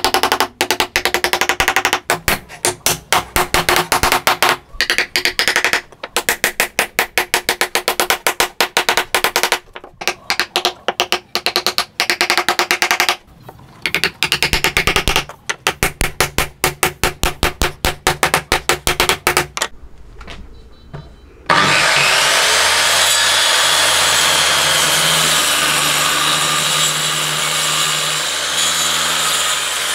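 Rapid, light hammer taps, many a second with short pauses, as a claw hammer drives wooden bowtie keys down into their mortises in a wood slab. About two-thirds of the way through, an electric circular saw starts suddenly and runs steadily, cutting wood.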